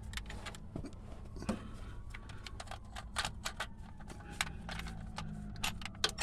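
Scattered light metallic clicks and clinks of a hand tool tightening a motor mount bolt, over a low steady hum.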